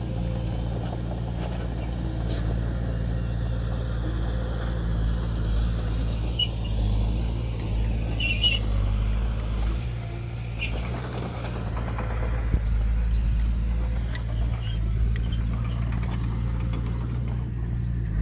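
Diesel engine of heavy earthmoving equipment running steadily, with a few short high squeaks about halfway through.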